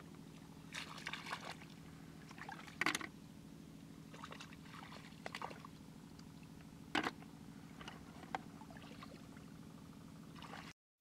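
Faint, scattered splashes and squelches of hands, and then feet, moving through the shallow water and mud of a flooded rice field while snails are picked by hand, the loudest about three seconds in and again about seven seconds in.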